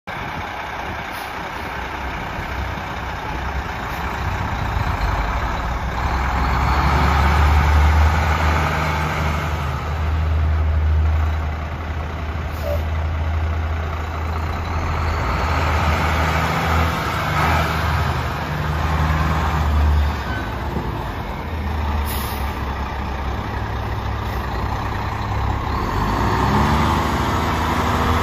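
Heavy-truck diesel engine, a Cummins ISM inline-six, running, its low note swelling and easing in level several times.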